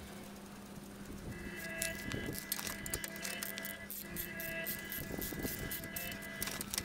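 Background music with held steady tones. From about a second and a half in it is joined by quick metallic clicks of a socket ratchet tightening a leaf-spring U-bolt nut.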